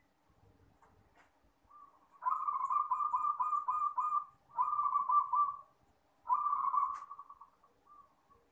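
Zebra dove (perkutut) singing: three phrases of rapid, trilling coo notes, the first about two seconds long and the next two about a second each, with a few soft single notes before them.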